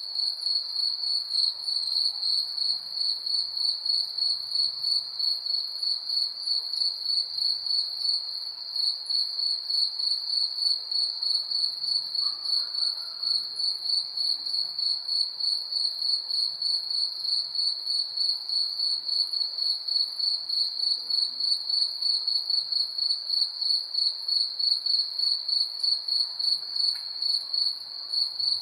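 Crickets chirping at night in a steady, evenly pulsing chorus, with a fainter, higher insect trill above them.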